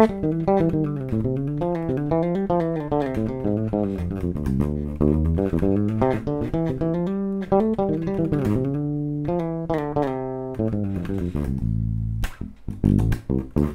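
Fender Jazz Bass played fingerstyle over the bridge pickup: fast runs of notes that climb and fall, each note bright and clearly separated. Near the end it slows to a few longer low notes.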